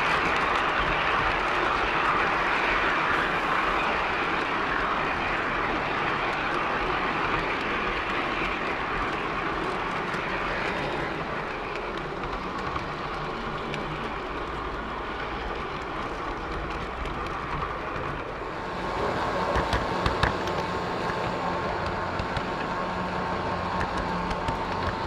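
Garden-scale model train running on its track, heard from a camera riding on it: a steady rushing noise of wheels rolling on the rails. It grows louder about three-quarters of the way through, with a few sharp clicks.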